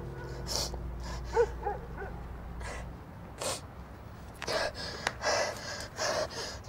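A young woman sobbing: ragged gasping breaths broken by a few short whimpering cries.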